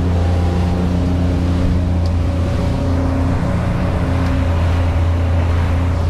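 Twin engines of a Hydra-Sports 28 Vector boat running steadily under way, a deep even drone, under a constant rush of water and wind against the hull and enclosure.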